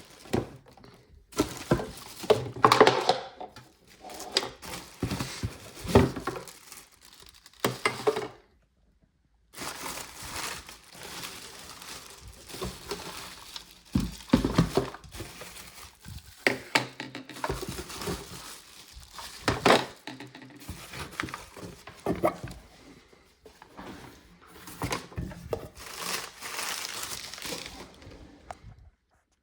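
Packaging being handled during an unboxing: plastic wrap and packing material crinkling and rustling in irregular spells, with knocks and clicks as parts are moved and set down. It stops briefly about nine seconds in.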